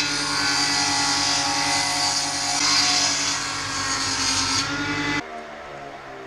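An engine running steadily at constant speed, with a strong even hum. About five seconds in it cuts off abruptly, and a quieter, different machine hum takes over.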